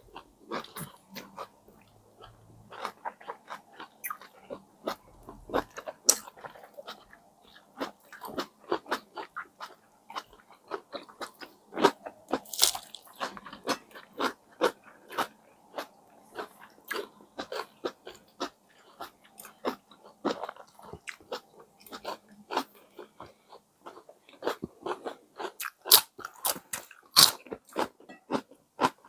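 Close-miked mouth sounds of two people biting into and chewing brioche-bun sandwiches of ham, egg, cheese and lettuce: a dense, irregular run of short smacks and soft crunches.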